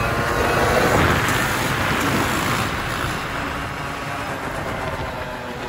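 Dirt bike engine running, its sound growing about a second in and then fading steadily, under a rushing, wind-like noise.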